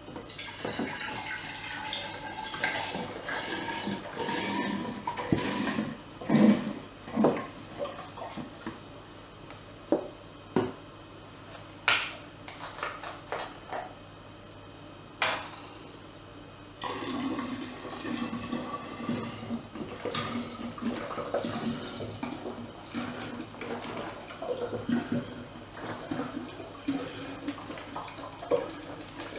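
Apple juice poured in a stream into a large glass jar, splashing and gurgling, with a tone that rises as the jar fills. Near the middle the pouring stops for a while, with a few sharp knocks and clinks, then it starts again.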